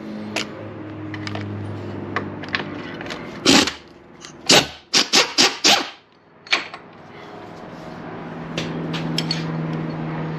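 Hand socket wrench on an extension working the 12 mm battery hold-down bolt loose: scattered metal clicks, with a quick run of about five loud ratcheting strokes around the middle, over a steady low hum.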